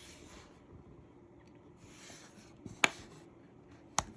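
Handling of a charging cable and phone: soft rustling, then two sharp clicks about a second apart, the first the louder.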